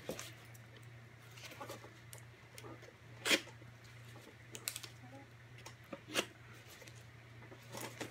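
Scissors cutting and scraping at the tape sealing a film can: short sharp snips about every second and a half, the loudest about three seconds in, over a faint steady low hum.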